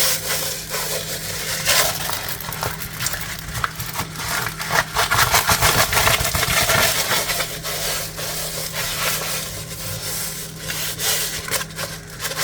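Hands rubbing and handling a diamond-painting canvas, a continuous scraping rustle with many small crackles.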